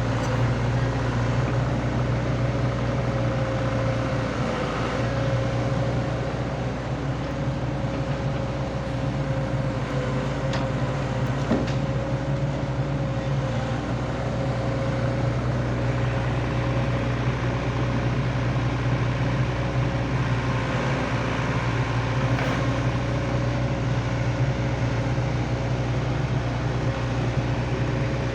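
Excavator's diesel engine running steadily, a constant low hum with a steady whine above it.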